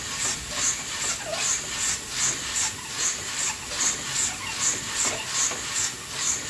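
Coffee beans tumbling and sizzling in an old hand-cranked drum coffee roaster, giving a rhythmic hissing swish about two to three times a second as the drum turns.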